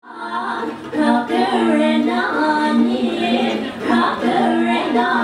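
Voices singing a cappella in long held notes, several pitches sounding together.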